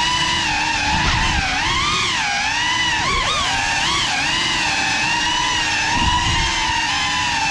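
Brushless motors and ducted propellers of a GEPRC Cinelog35 cinewhoop FPV drone whining, the pitch rising and falling with the throttle. Short low rumbles of prop wash come about a second in and again near the end.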